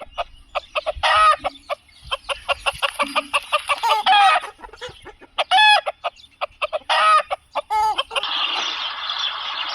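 Desi chickens clucking and calling in a rapid run of short, pitched squawks and clucks, several loud calls standing out. About eight seconds in, a dense steady noisy chatter takes over.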